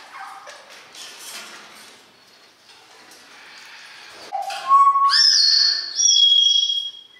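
A parrot whistling a short run of loud, clear notes that step upward in pitch, starting about four seconds in and breaking off just before the end, over faint background bird calls.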